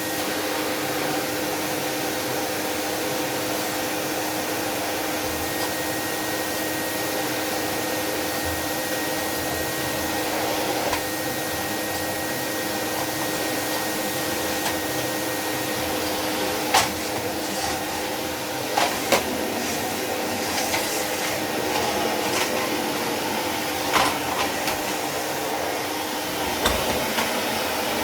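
Miele S 224 vacuum cleaner running steadily, a constant motor whine over airflow noise. In the second half a few sharp knocks and clicks stand out over the running motor.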